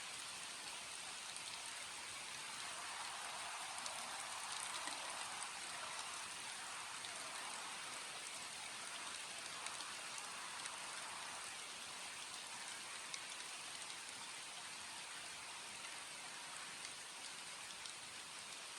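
Steady rain falling, an even hiss with scattered drop ticks, swelling slightly in the first half.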